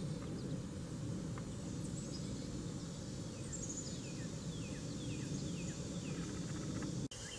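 Birds calling in short, falling chirps, a quick run of them in the second half, over a steady low background rush.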